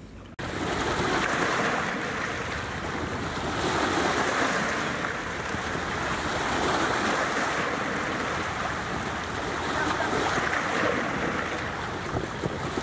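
Small waves washing and splashing against an old wooden boat hull at the shoreline, in slow swells, with wind buffeting the microphone.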